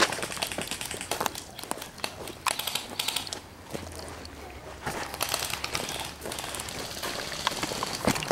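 Irregular rustling and crinkling with scattered sharp clicks and crunches, made by a player's clothing and gear moving close to the microphone.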